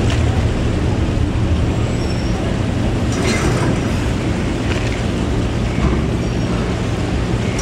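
Passenger ferry's engines idling at the berth, a steady low drone, with a brief clatter about three seconds in.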